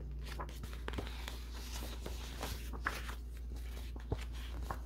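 Picture book being handled and its page turned: soft paper rustles and light ticks, one sharper tick near the end, over a steady low hum.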